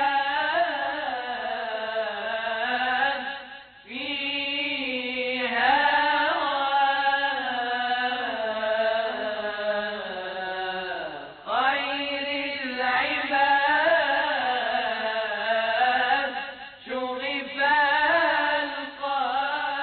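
A solo voice chanting long, ornamented melodic phrases with gliding pitch in the style of Arabic religious chant, breaking briefly for breath three times.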